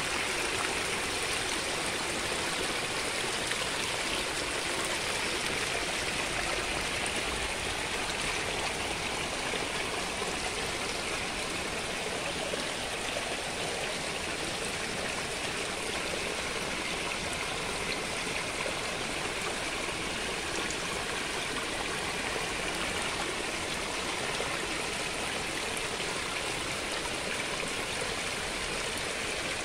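Rainwater runoff spilling in a small cascade over a rock ledge and running across stones, a steady splashing flow.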